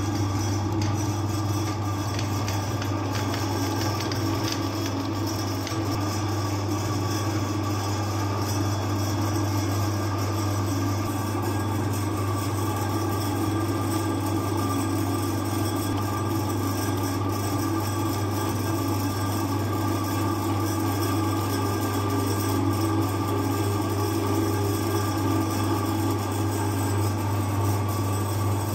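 Electric meat grinder running steadily, its motor giving a constant low hum, as the auger grinds macarons and forces the paste through the cutting plate.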